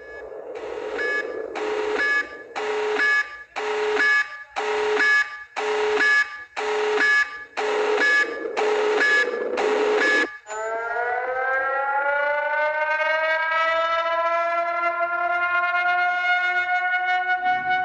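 Emergency alert alarm pulsing about once a second, a harsh buzz with a steady tone in each pulse, about ten times. Then it cuts off and an outdoor warning siren winds up, its pitch rising over several seconds before holding steady.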